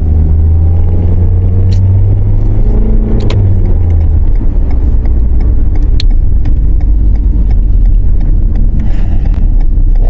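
Toyota C-HR driving, heard from inside the cabin: steady engine and road rumble with a low drone that drops away about four seconds in, and a few light clicks.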